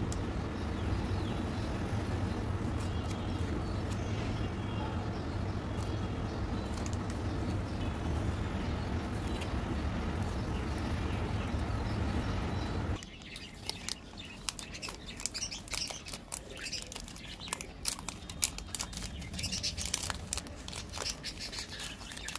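A steady low hum for about the first half, which then drops away abruptly. After it, a Cadbury Dairy Milk chocolate bar's metallic-lined wrapper is crinkled and torn open in a quick, irregular run of sharp crackles.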